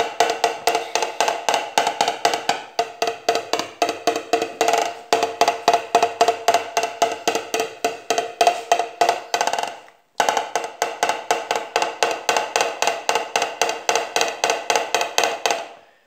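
Rapid, even woodblock-like knocking, about five hollow knocks a second, like a woodpecker drumming. It stops briefly about ten seconds in, then starts again.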